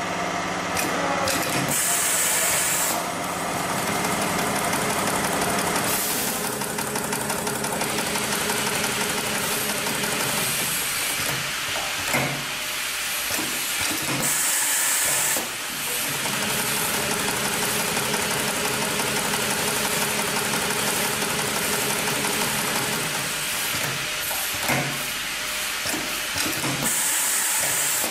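Industrial programmable pattern sewing machine running steadily, stitching while its X-Y table moves the clamp plate. Three short hisses of air, about twelve seconds apart, break over the machine's noise.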